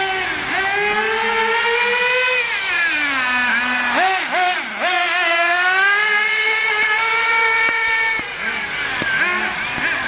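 Radio-controlled car's motor revving up and down over and over, its high whine rising and falling in pitch, with brief sharp drops about four seconds in and again near the end.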